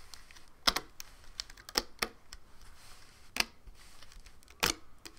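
Irregular sharp clicks and light taps of rubber loom bands and the plastic loom pins being handled as a finished Rainbow Loom bracelet is lifted off the loom by hand.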